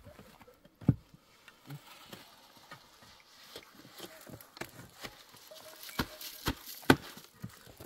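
Mason's trowel knocking and scraping mortar on top of a concrete block wall: a string of sharp, irregular taps, the loudest few near the end.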